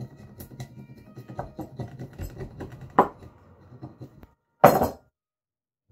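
A steel hatchet blade scraping and shaving bark off a birch log in quick repeated strokes against a wooden board, with a sharp knock about three seconds in and a louder half-second scrape near the end, after which the sound stops abruptly.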